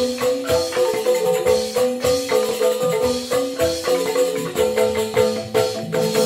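Balinese joged bumbung bamboo gamelan playing: bamboo xylophones struck in quick, dense mallet strokes, with steady pitched notes underneath.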